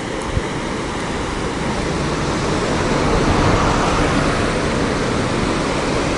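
Shallow river rapids rushing over a rocky bed: a loud, steady rushing noise that swells a little over the first few seconds and then holds.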